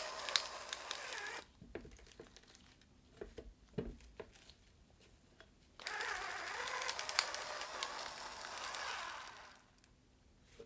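Kitchen prep handling while the yellowtail is salted and set aside: two spells of dry rustling, with a few light knocks and taps between them.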